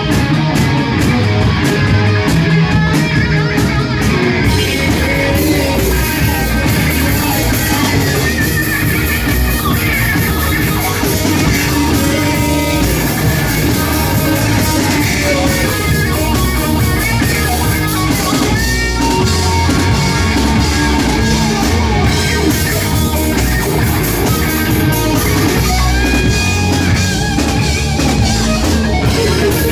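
Rock band playing live, loud and continuous: guitars over a drum kit.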